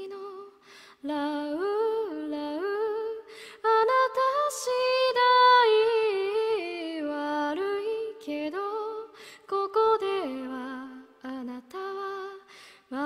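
A woman singing a cappella, a slow melody of sustained notes in short phrases with breaths between them, no accompaniment. The lyrics run "La-u La-u" and then Japanese words.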